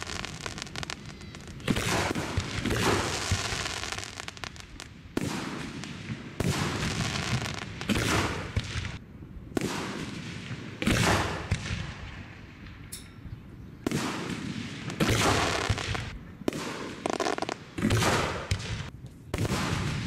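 Aerial fireworks shells bursting one after another at a display: about a dozen sharp booms over twenty seconds, each trailing off in a rumbling echo.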